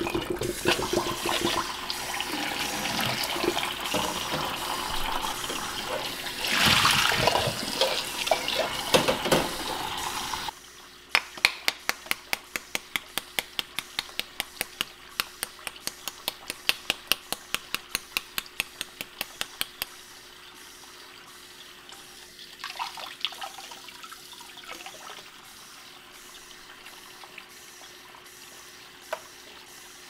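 Tap water pouring into a stainless steel pot of hard-boiled eggs in a sink, splashing steadily. About ten seconds in the water noise cuts off and a rapid, even run of sharp clicks follows for about nine seconds, then only faint handling sounds remain.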